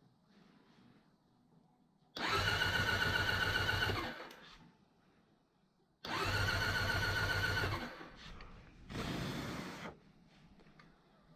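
A small electric motor whirs in three short runs with a steady whine. The first two start suddenly, last about two seconds each and wind down; the third, near the end, is shorter and duller.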